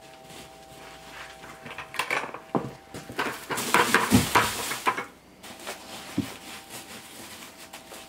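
Dry pine wood shavings scooped by hand into a plastic bucket with rustling and scraping, then poured out in a loud rushing pour into a large tub about three and a half seconds in, and spread by hand. A faint steady hum sits underneath.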